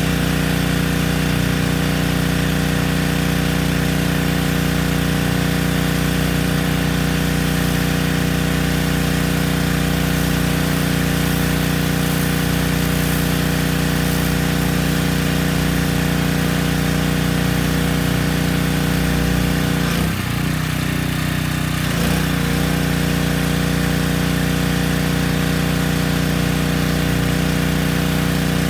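Yamaha PowerStroke 3100 PSI gas pressure washer's engine running steadily. Its pitch dips briefly about twenty seconds in, then comes back up.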